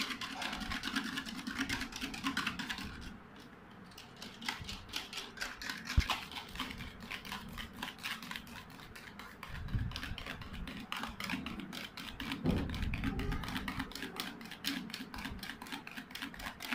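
Wire whisk beating egg whites in a metal bowl by hand: fast, rapid clicking of the whisk against the bowl, easing briefly about three seconds in, with one sharper knock around six seconds.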